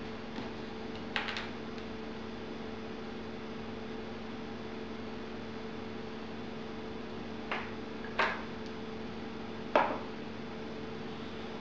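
A few sharp knocks of hand tools handled on a leatherworking bench, one just over a second in and three more close together later, over a steady electrical hum.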